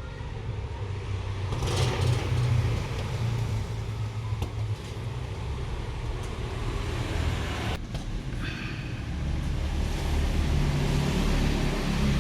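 A motor vehicle's engine running nearby, a steady low rumble that grows louder toward the end.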